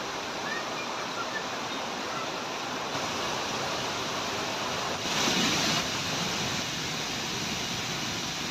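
Steady rushing roar of a tall waterfall's falling water, with a brief louder swell about five seconds in.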